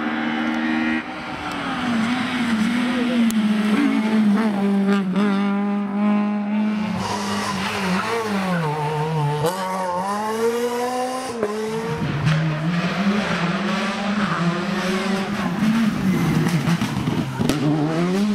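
Rally cars driven flat out one after another on a tarmac stage, their engines revving high and dropping sharply through gear changes and lifts off the throttle.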